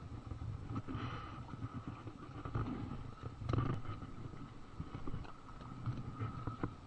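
Footsteps and body-camera handling noise on a dirt bank: irregular low rumbling with scattered soft knocks and a louder scuffle about halfway through, over a faint steady high tone.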